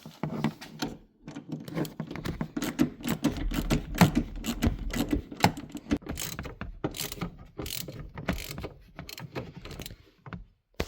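Ratchet wrench clicking in quick runs of strokes, undoing the bolts that hold a car's front seat.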